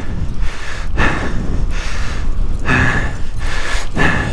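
A cyclist's heavy breathing close on a lapel mic, a hard breath every second or so from being winded, over a steady low rumble of wind on the microphone.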